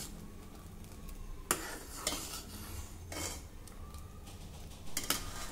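Steel ladle stirring thick pumpkin soup in a metal pot, with soft sloshing and a few sharp knocks of the ladle against the pot.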